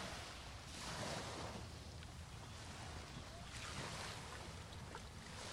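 Small waves washing up on a sandy beach shoreline, a hiss that swells and fades every second or so, with some wind on the microphone.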